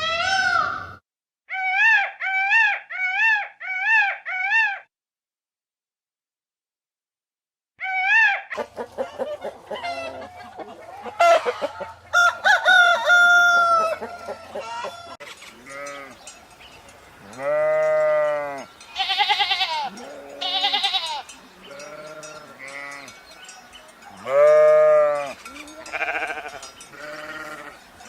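Farm-animal calls in sequence. A run of five short repeated calls comes first, then a pause of a few seconds. After that come chickens clucking and a rooster crowing, then sheep bleating repeatedly through the rest.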